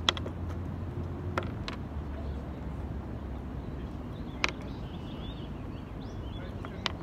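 About five sharp clicks and taps as a telescoping fishing rod and its reel are handled and the reel seat is worked on. A steady low rumble runs underneath.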